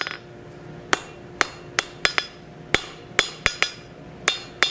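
A blacksmith's hand hammer striking a red-hot bar on an anvil, about ten ringing blows in an uneven rhythm, some in quick pairs, after a short pause near the start. The bar is being drawn down between its shoulders at the edge of the anvil.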